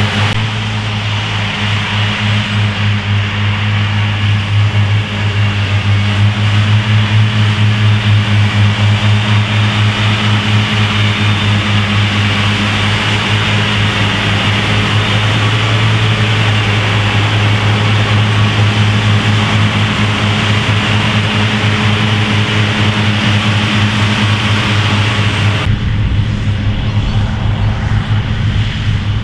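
Claas Cougar 1400 self-propelled mower running steadily under load while mowing grass: a constant deep diesel engine drone with a hiss over it. A little before the end the sound turns abruptly duller and more distant.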